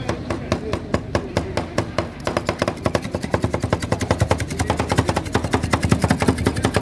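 Two steel spatulas rapidly chopping on a frozen stainless-steel rolled-ice-cream cold plate, a fast, even clatter of metal strikes that quickens about two seconds in, as mix-ins are chopped into the freezing cream base.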